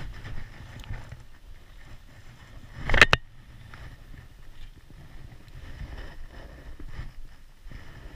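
A spinning rod being cast, heard as a quick swish ending in a sharp snap about three seconds in, over a low rumble.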